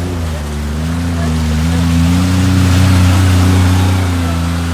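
Polaris UTV engine running under load, its pitch drifting slightly as it rises in loudness to a peak about three seconds in and then eases off, over a steady rushing hiss.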